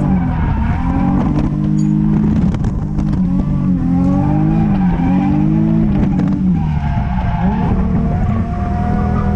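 2003 Infiniti G35's 3.5-litre V6 heard from inside the cabin, its revs rising and falling again and again as the car drifts, with the tyres squealing.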